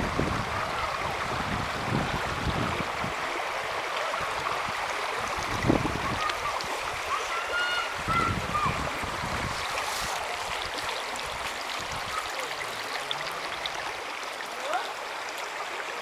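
Shallow stream running over rocks: a steady rush of water. Low rumbles on the microphone come and go in the first half, and a few short high-pitched calls sound about eight seconds in.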